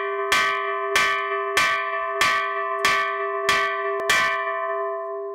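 An old steel gas cylinder hung from a tree as a bell, struck seven times at a steady pace of about one and a half strikes a second. Each loud clang rings on with several sustained tones, and the ringing lingers after the last strike, about four seconds in.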